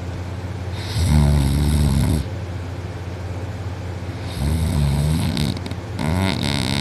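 A person snoring heavily in deep sleep, throat relaxed: three snores, a long one about a second in and two more close together near the end, each a pitched, wavering drone.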